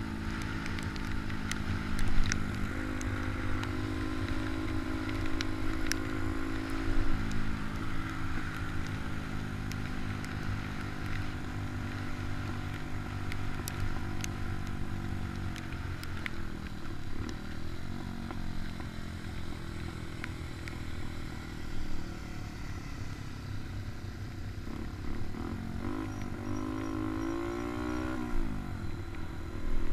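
Honda Dax minibike's small four-stroke engine running steadily on the move. Its pitch dips about two-thirds of the way in, then rises and falls again near the end as the throttle changes.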